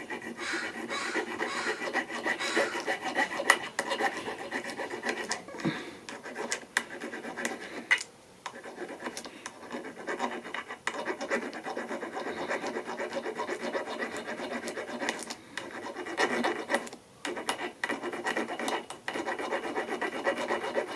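Rapid scraping and rasping strokes against the metal of a door key cylinder, smoothing down a protruding tumbler that had been jamming the cylinder. The strokes pause briefly twice, a little under halfway and again later on.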